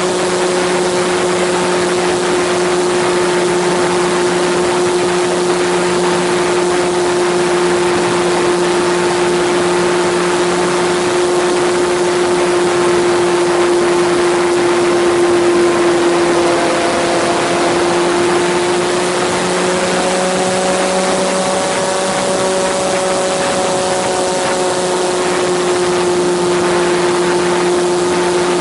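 Electric motor and propeller of an E-flite Night Vision RC plane running at a steady whine in flight, heard from an onboard camera with wind rushing past. The pitch dips a little about two thirds of the way through, then recovers.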